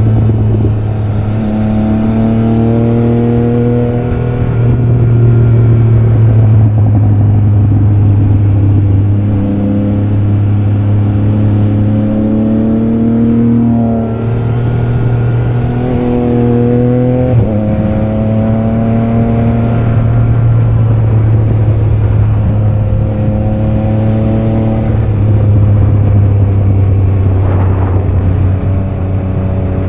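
Triumph Trident 660's three-cylinder engine under way, loud, its note climbing in pitch and then dropping again about six times as it accelerates and shifts.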